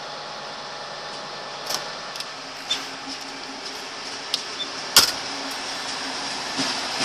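Slovenian Railways passenger train rolling past on the adjacent track, its wheels clicking over rail joints and points in a series of sharp knocks, the loudest about five seconds in, over a steady low hum.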